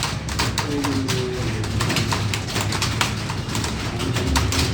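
Many computer keyboards being typed on at once during a timed typing test: a dense, irregular clatter of keystrokes over a steady low hum.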